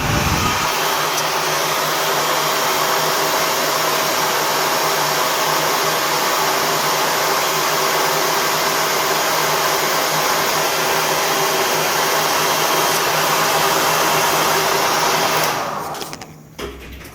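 Hair dryer blowing steadily: a loud, even rush of air over a faint motor hum. Near the end it stops and winds down, followed by a short click.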